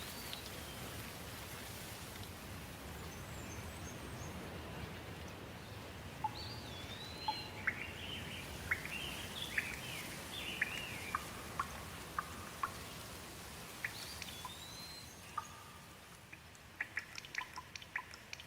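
Steady rain with songbirds chirping and calling over it, short rising and falling calls clustered in the middle. Near the end the rain thins and a run of quick, sharp ticks takes over.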